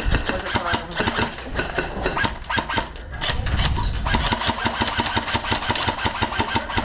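Airsoft guns firing on full auto in rapid strings of shots, with a short lull about three seconds in.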